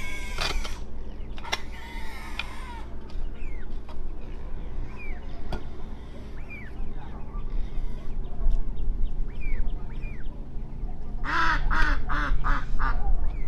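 Ducks quacking in a quick run of about five calls near the end, with small birds giving short chirps through the middle and a couple of sharp knocks, over a steady low rumble.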